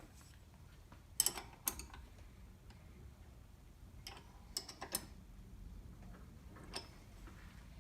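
A few scattered light clicks and taps, about seven in all with a short cluster in the middle, from metal parts and hand tools being handled.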